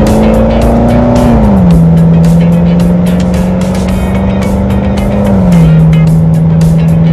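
Background music with a steady beat and a deep, sustained bass note that slides down in pitch twice.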